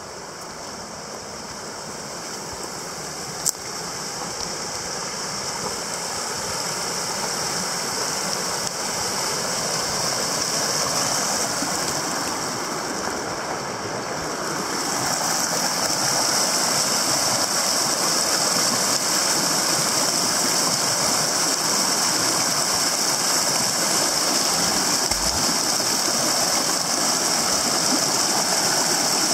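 Creek water rushing and churning between boulders, growing steadily louder, with a further rise about halfway through. One sharp click a few seconds in.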